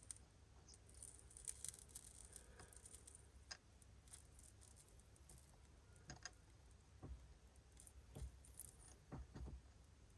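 Near silence with faint handling noises: light rustling early on, then a handful of small clicks and taps, from hand work on car wiring being bridged and soldered.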